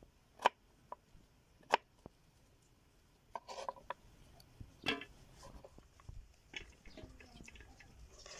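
Two sharp knocks, a short clatter in the middle, another knock, then a few light clicks, as of hard objects being handled and set down.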